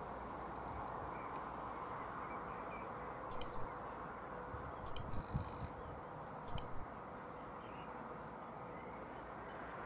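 Three sharp mouse-click sound effects about a second and a half apart, from a subscribe-button animation, over a faint steady outdoor background hiss.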